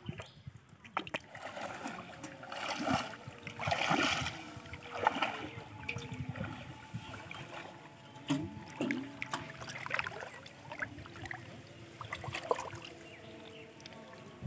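Shallow water splashing and sloshing in irregular bursts as a person wades through it and handles a plastic-bottle fish trap, loudest a few seconds in.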